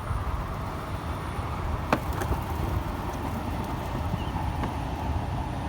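Steady low rumble of outdoor background noise, with one sharp click about two seconds in.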